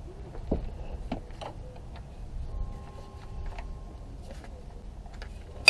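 Hand wrench working on the starter's fasteners: a few scattered light metallic clicks and clinks, with a sharper click right at the end.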